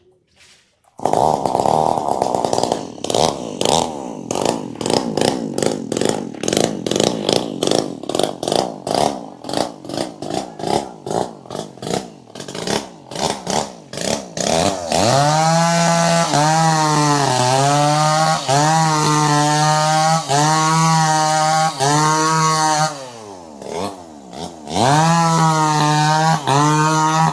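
Chainsaw engine starting up about a second in and running in rapid, uneven pulses. About halfway through it settles into a high-revving steady whine whose pitch dips and rises about once a second as the throttle is worked. It drops back briefly near the end and then revs up again.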